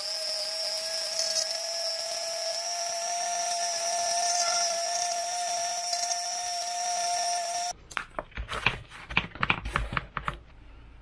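Dremel rotary tool running at high speed with a steady whine as its bit carves a recess into a foam fuselage. The tool cuts off suddenly about three-quarters of the way through, and a run of light knocks and rustles follows.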